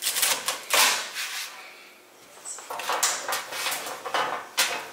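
Asparagus spears being handled and spread by hand across a metal sheet pan: a series of short rustles and light knocks against the pan, loudest about a second in, with a quick run of them in the second half.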